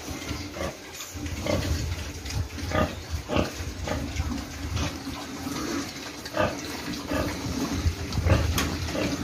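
Young grower-stage fattener pigs eating side by side at a trough, with short grunts and feeding noises repeating about once or twice a second.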